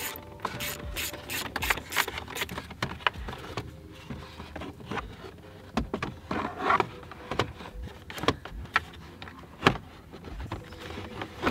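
A ratchet wrench clicks steadily, about three clicks a second, as it drives a bolt into a radio mounting bracket. It stops after about two and a half seconds, and scattered knocks and scrapes of plastic dash trim being handled follow.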